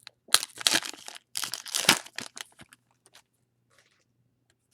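A trading-card pack's wrapper being torn open and crinkled in two crackling bursts over the first two and a half seconds, followed by a few faint rustles.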